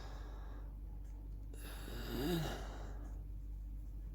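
A person's breathy exhale, with a short voiced rise and fall, about two seconds in, over a low steady hum.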